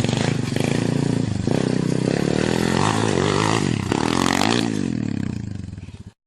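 Engine revving, its pitch rising and falling several times, then cutting off abruptly near the end.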